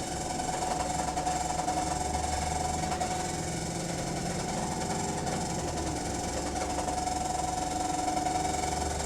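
Diesel bus engine and Voith automatic gearbox running, heard from inside the bus, with a steady high whine over the engine note. The low engine tone shifts a few times.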